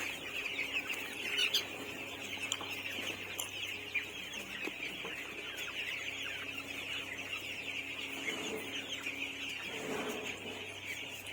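A large flock of chickens calling all at once, a dense, continuous chatter of many overlapping calls, with a steady low hum beneath.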